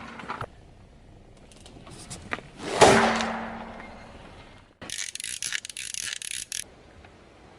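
Crunchy objects being crushed under a car tyre: a sudden loud crunch about three seconds in that dies away over a second, then a couple of seconds of fine crackling.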